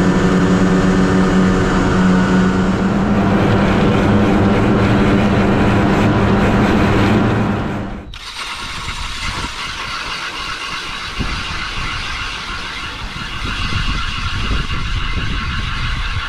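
A vehicle driving on a snowy road, its engine running steadily with a low hum. About eight seconds in it cuts abruptly to the steady, higher-pitched drone of a motorised ice auger drilling a hole through lake ice.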